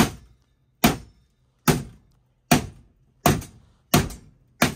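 Repeated hammer blows: seven sharp strikes a little under a second apart, each dying away quickly.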